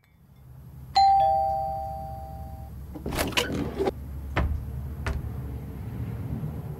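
Two-note doorbell chime, a higher note then a lower one, ringing out about a second in and fading. It is followed by a rustling clatter and two short knocks.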